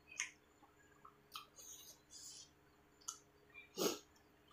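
Close-up eating sounds of rice and chicken curry eaten by hand: short wet chewing clicks and lip smacks, with fingers sucked clean. The loudest, fullest smack comes near the end.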